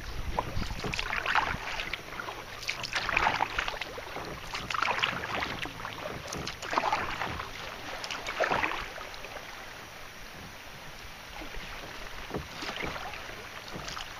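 Kayak paddle strokes in calm river water: a splashy swish about every two seconds, growing weaker after about nine seconds.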